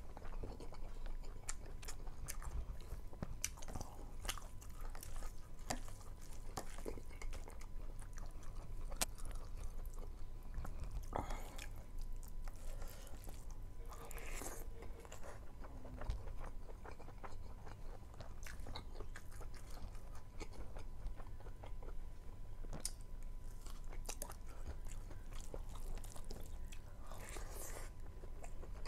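Close-up eating sounds: a person chewing handfuls of rice and meat curry, with many small irregular mouth clicks and wet smacks.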